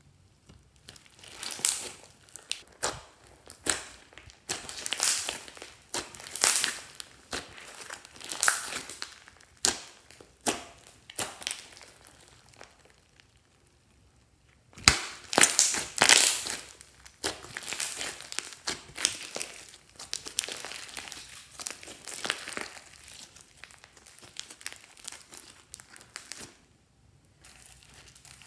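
Slime being squished and stretched by hand: fluffy white-and-blue slime with small beads in it gives irregular crackling, popping squishes as air pockets burst. There are two short lulls, one about halfway through and one near the end.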